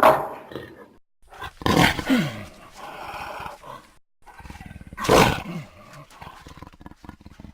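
Baryonyx dinosaur sound effects: a brief call at the start, then two loud roars a few seconds apart, each starting sharply and sliding down in pitch into a rasping, fading tail.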